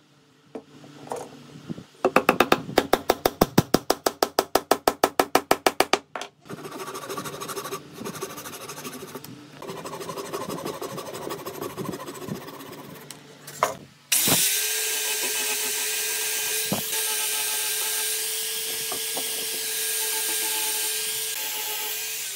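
Rapid, even tapping for a few seconds, then scraping as a chisel pares the wooden frame. About two-thirds of the way in, an angle grinder with a sanding disc starts and runs at a steady high pitch, sanding the wood, and begins to wind down at the very end.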